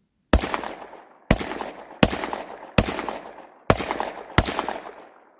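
Panzer EG200 12-gauge lever-action shotgun fired rapidly: six shots about three-quarters of a second to a second apart, each followed by a rolling echo, with a seventh shot right at the end.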